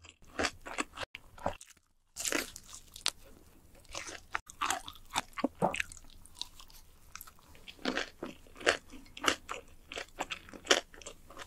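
A person biting into and chewing crunchy fried food close to the microphone, with irregular crisp crunches. There is a brief silent break about two seconds in.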